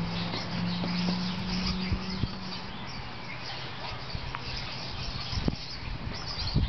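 Small birds chirping faintly over a stable's background noise, with a steady low hum during the first two seconds and a few soft knocks later on.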